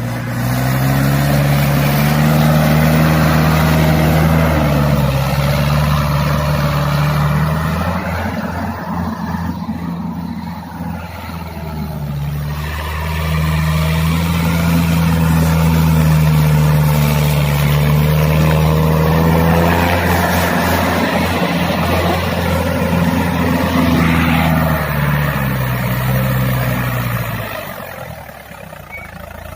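Mahindra DI tractor's diesel engine pulling a heavy load at high revs. The revs rise in the first couple of seconds, sag about twelve seconds in, climb again and hold, then drop back near the end.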